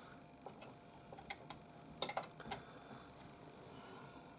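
Faint, sharp plastic clicks and ticks as a RAM stick is pressed into a tight motherboard memory slot. There are several scattered clicks, with a small cluster about two seconds in.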